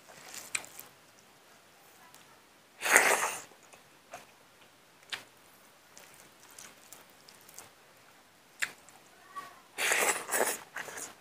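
A person eating rice and curry by hand from a steel plate: faint clicks of fingers mixing food on the plate, with two louder bursts of wet mouth sounds, one about three seconds in and a longer one near the end as a handful goes into the mouth.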